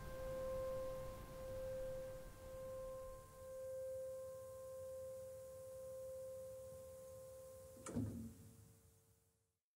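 The last note of the soundtrack music ringing out: a faint, steady ringing tone that slowly swells and ebbs. A brief soft stroke comes near the end, and then it all fades out.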